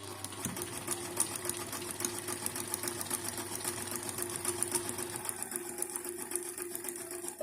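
An old Brother Riviera 110 domestic sewing machine running at a steady speed, its needle and hook ticking in a fast, even rhythm over a motor hum. It starts and stops abruptly. This is a test seam sewn after its upper-thread tension spring has been tightened.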